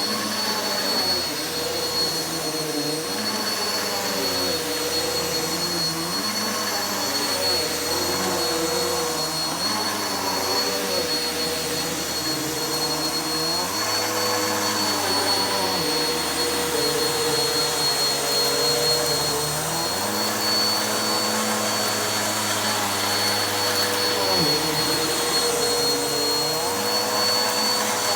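Vacuum cleaner running steadily over carpet, with a constant high whine; its lower hum shifts every few seconds.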